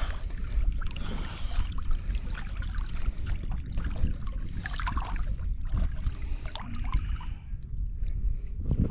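Water sloshing and splashing around a man wading chest-deep and ducking under the surface, with many small irregular splashes over a steady low wind rumble on the microphone.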